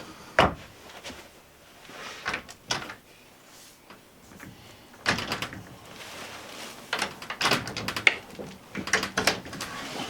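Cabinet drawers and closet doors in an RV bedroom being opened and shut, giving a series of wooden knocks, clacks and short sliding rattles, with a dense cluster of them in the second half.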